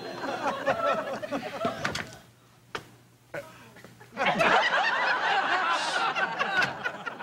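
People laughing and chuckling. The laughter dies away for about two seconds, with two short knocks in the lull, then breaks out again louder.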